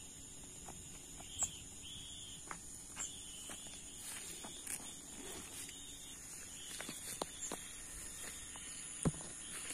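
Insects chirring steadily at a high pitch, with scattered light clicks and footsteps on a gravel path, and a louder thump about nine seconds in.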